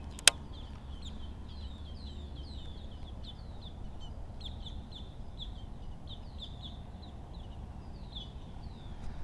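Birds calling over and over in short, high, falling chirps, above a steady low rumble. A single sharp click sounds just after the start.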